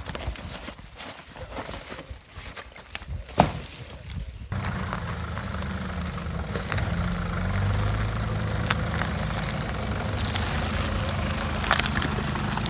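Scattered knocks and one sharp, loud thud about three seconds in as a heavy fallen log is shifted by hand. From about four and a half seconds, a Nissan Patrol four-wheel drive's engine runs steadily at low revs as it crawls slowly along a bush track.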